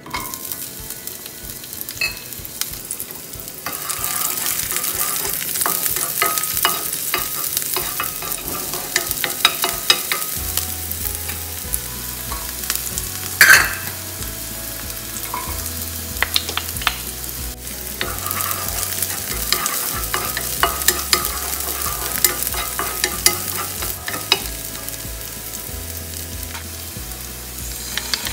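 Sliced red onion sizzling and frying in hot oil in a nonstick pan, with the small clicks and taps of a wooden spoon stirring. There is a sharp, louder burst of sizzle about halfway through, as ginger slices go into the oil.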